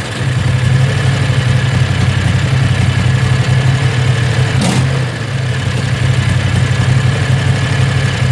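Predator 670cc V-twin engine idling steadily after a warm start, with no surging, fed by an electric fuel pump through a filter with a return line to the tank. A single brief click about four and a half seconds in.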